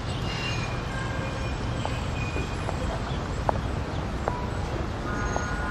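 Steady background rumble and hiss of outdoor ambience, like distant traffic, with a few faint short ticks.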